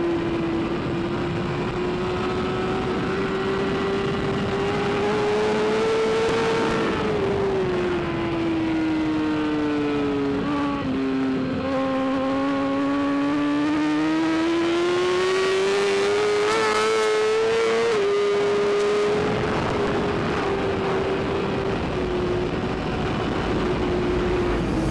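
BMW S1000RR's inline-four engine running at high revs under a steady rush of wind noise. Its pitch climbs slowly, sinks to its lowest a little before the middle, climbs again, drops a step about two thirds through and then holds steady.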